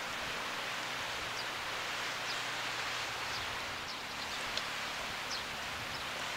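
Steady outdoor ambient hiss with faint, brief high chirps scattered through it and a low hum during the first half.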